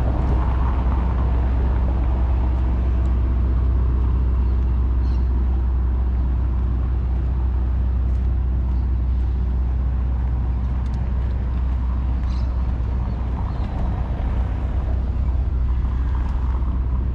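City street ambience: a steady low rumble of road traffic, with a few faint ticks.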